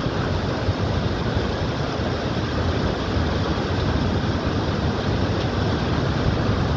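Swollen river water pouring over a weir and rushing across its stepped apron: a steady rush of water with no let-up.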